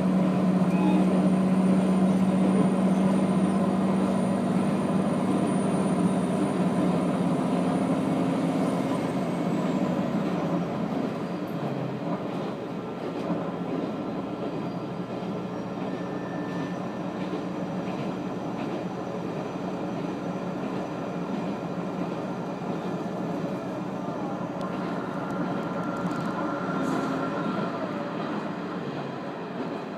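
Running noise of an Aizu Railway diesel railcar heard from inside the cabin: a steady low hum over the rumble of wheels on track. About ten seconds in the hum and a high whine stop and the noise drops, leaving the wheel and track rumble, with a faint brief squeal near the end.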